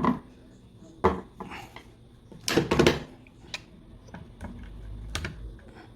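Metal parts and tools of a small cloth-cutting machine clinking and knocking against a hard surface as they are handled: a few separate clinks, with a quick cluster of several about halfway through.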